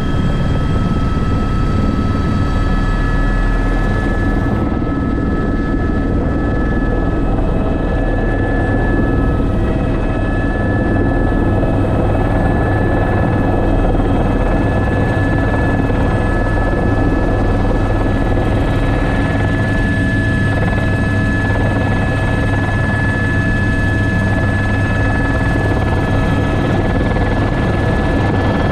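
Airbus H125 (AS350 B3) helicopter heard from inside the cockpit: a steady low main-rotor drone under several constant high turbine whines, all unchanging.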